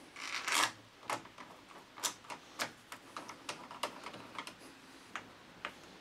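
Retaining screw for a Euro cylinder being driven by hand with a screwdriver into the edge of a uPVC door's multipoint lock. About a dozen light, irregular clicks sound, roughly two a second.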